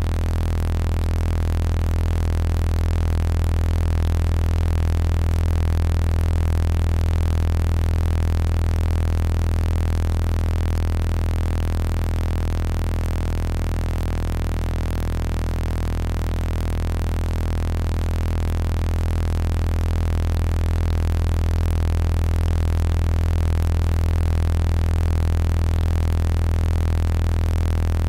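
Sound-healing frequency tones: many steady electronic tones sound together as a continuous drone, the loudest a low hum, with the whole slowly swelling and easing in loudness. They are a personalized set of tones generated by software from a voice sample.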